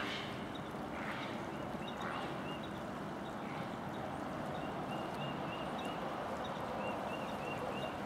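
Steady rush of river water flowing. Runs of short high chirps, a few a second, come about two seconds in and again through the second half.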